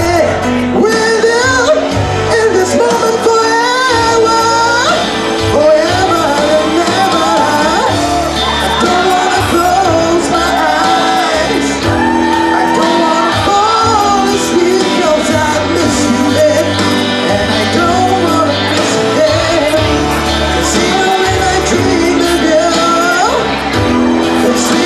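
A man singing a pop song into a microphone over a backing track, the sung melody gliding over a steady accompaniment with bass.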